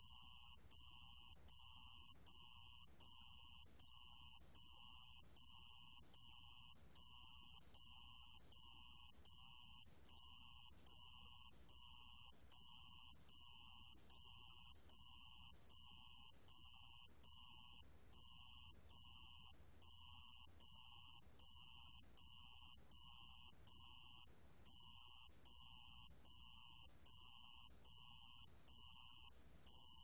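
A 모래방울벌레 cricket singing at 28 °C: a high-pitched trill broken into even pulses of about half a second, a little more than one a second, with an occasional slightly longer gap.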